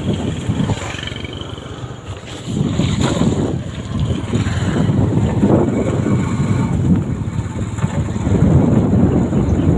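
Wind buffeting the microphone in gusts, a loud rumbling noise that rises and falls.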